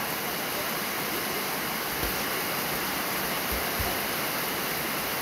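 Heavy rain falling in a steady hiss, with water streaming off a roof; a few soft low thumps about two and three and a half seconds in.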